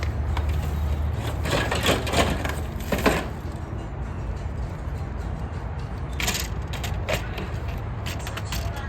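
Hard plastic toy-garage parts clicking and clattering as they are handled and fitted together: a run of clicks about a second and a half in, and another near the end, over a steady low rumble.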